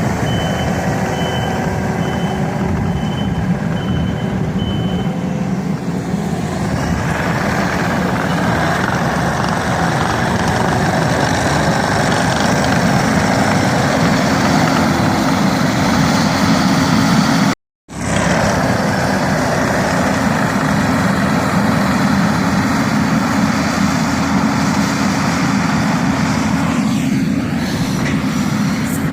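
Bobcat skid steer's diesel engine running hard while its stump grinder attachment works, with the machine's reverse alarm beeping for the first few seconds. The noise grows louder and fuller about seven seconds in, and the sound cuts out completely for a moment just past the middle.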